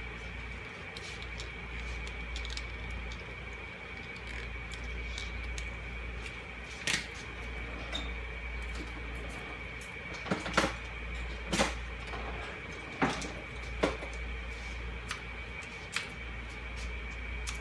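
Kitchen room tone: a steady low hum with a faint high whine. Over it come scattered sharp knocks and clacks of things being handled, like cupboard doors or utensils, several close together midway through.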